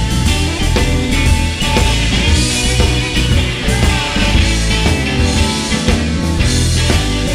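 Live electric blues band playing: electric guitars over bass and drums.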